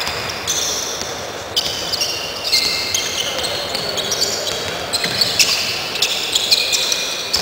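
Basketball play on a hardwood court: sneakers squeaking again and again in short high-pitched squeals, with a few sharp ball bounces over a low murmur of voices.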